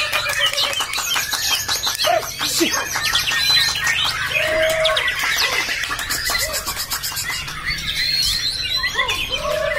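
Young white-rumped shama singing a busy, varied song of whistles and fast chattering trills, with other caged birds calling around it.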